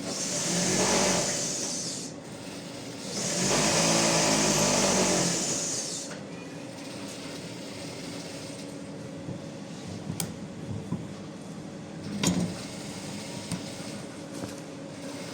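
Electric sewing machine running in two bursts of a couple of seconds each, then stopping; a few sharp clicks follow later.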